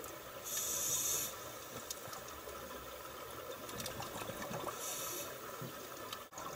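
Scuba regulators heard underwater: two short hisses of breath through a regulator, about half a second in and again near five seconds, over a faint bubbling wash with scattered faint clicks.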